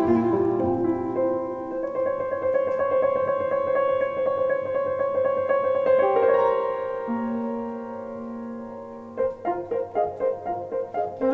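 Clarinet and grand piano playing a classical piece together: sustained notes over piano chords, easing to a softer passage, then short detached notes repeating about three times a second near the end.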